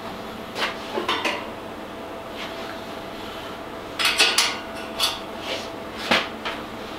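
Metal clinks and knocks on a stainless steel frame as it is worked on by hand: a couple of knocks about a second in, a quick run of several near four seconds, and single knocks near five and six seconds, over a faint steady hum.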